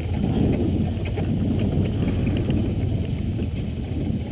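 Truck moving with a steady low rumble from the engine and road, and wind buffeting the microphone, with faint scattered rattles.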